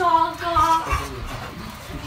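A high voice singing a short melodic phrase, which dies away about a second in and leaves a quieter steady background.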